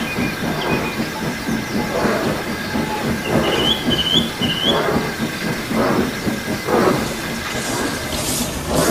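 A moving train with a dense, uneven rhythm of clatter and hiss, and three short, wavering high squeals about halfway through. A high steam-like hiss builds near the end.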